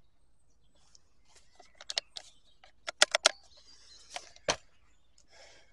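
Plastic housing shells of a Stihl MSA 120 C battery chainsaw being pulled apart by hand, giving sharp plastic clicks and snaps as the clips let go. There is a quick cluster of three about three seconds in and a last sharp snap about four and a half seconds in.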